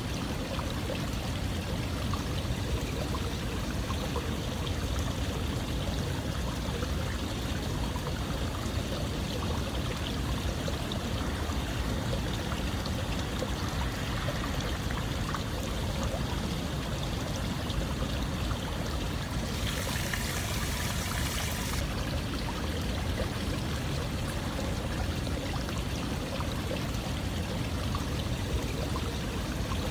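Running water flowing steadily, like a stream, an even rushing and trickling without pause. About two-thirds of the way through, a brighter hiss rises over it for a couple of seconds.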